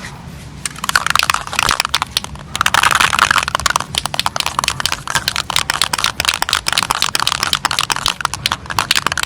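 Aerosol spray-paint can spraying, a hiss in short bursts from about a second in, then held almost steadily from about two and a half seconds, with rapid crackling clicks throughout.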